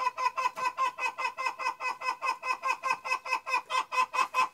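A chicken clucking rapidly and evenly, about six or seven short clucks a second.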